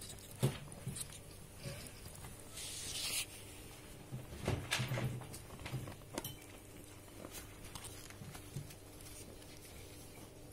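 Young ferret kits scuffling and wrestling on a fleece blanket: soft rustling, scratching and scattered light knocks, with a brief rustling rush about three seconds in and a few soft thumps a little later.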